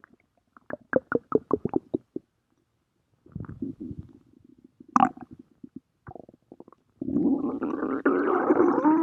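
Stomach growling: a run of quick pulses, a softer low rumble, then from about seven seconds in a louder, continuous rumble that wavers in pitch.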